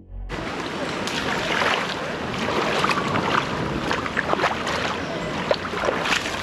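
Lagoon water lapping and splashing right at the microphone, a steady wash dotted with many small splashes, starting abruptly a moment in.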